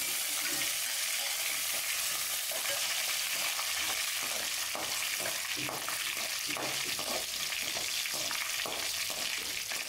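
Whole spices (coriander seeds, fennel, cumin, peppercorns and cinnamon) sizzling in a metal kadai with a steady high hiss, while a perforated metal spatula scrapes and tosses them in repeated strokes, most of them in the second half.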